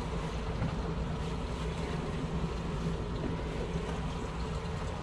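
Twin outboard motors running with a steady low drone, over the wash of wind and water.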